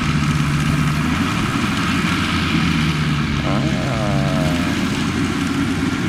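Yanmar YH850 rice combine harvester's diesel engine running steadily as the tracked machine cuts flattened rice, with the whir of its cutting and threshing works over the engine drone. A brief falling tone sounds about halfway through.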